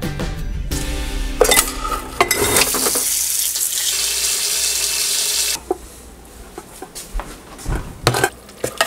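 Kitchen tap running into a stainless steel pot of meat bones, with pots and dishes clattering. The water shuts off suddenly a little past halfway, followed by a few scattered clinks.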